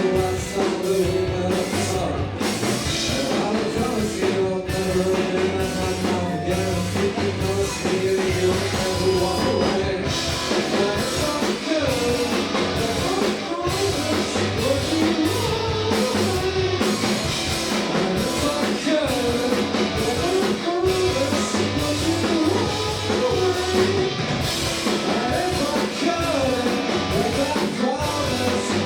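Rock band playing live: electric guitar, bass and drum kit, with a singer.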